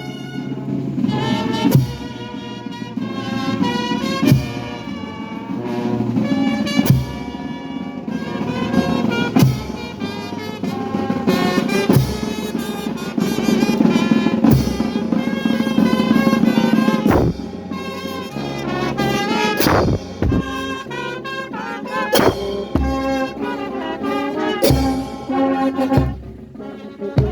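Brass music, with trumpets and trombones playing a melody and a drum struck about every two and a half seconds.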